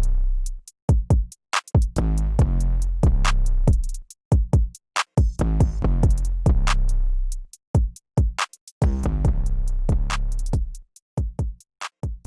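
Electronic outro music: a drum-machine beat with heavy bass notes and sharp, evenly repeated hits.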